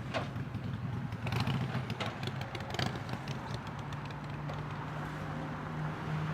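Heavy construction machinery running: a low, steady diesel engine hum with scattered clanks and knocks in the first few seconds, then a steadier engine tone coming in about four seconds in.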